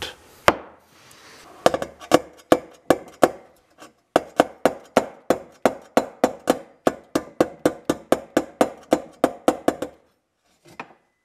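Small body hammer tapping on dented stainless steel car trim, about three light strikes a second, knocking a dent and kink back down. One lone tap comes first, then the steady run, and it stops about a second before the end.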